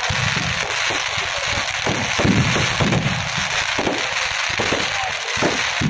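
Firecrackers packed into a burning Ravana effigy going off in a dense, irregular run of sharp cracks and bangs over a continuous crackle.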